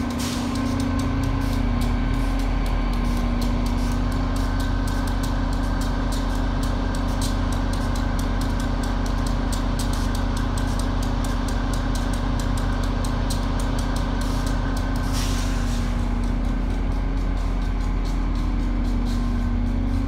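Steady, loud low machinery hum, like a large engine or motor idling, with a fast fine ticking over it. A short hiss comes about fifteen seconds in.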